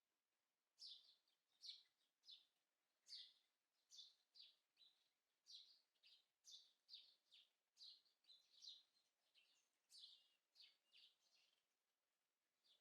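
Small bird chirping repeatedly: short, high chirps that drop quickly in pitch, about two a second, faint.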